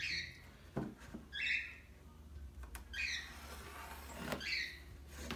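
Pencil scratching along a straightedge onto a plywood sheet, marking a cut line in four short strokes, with a couple of light taps.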